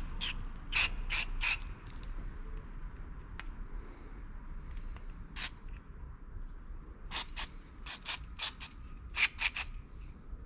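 Aerosol cleaner sprayed onto a mass airflow sensor in a series of short hissing bursts, several in quick succession, with a slightly longer spray about halfway through.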